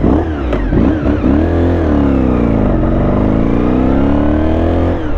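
Honda VFR400 NC30's 400 cc V4 engine, its carburettors freshly cleaned, revving in a few quick throttle blips. The pitch then dips and climbs steadily as the motorcycle accelerates away.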